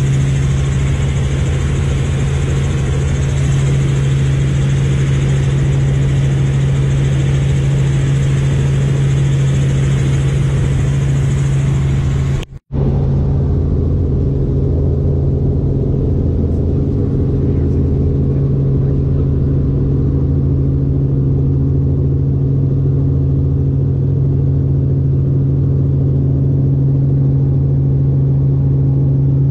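Light helicopter's engine and rotor drone heard inside the cabin in flight, steady with a strong low hum. About twelve seconds in the sound cuts out for an instant and comes back duller.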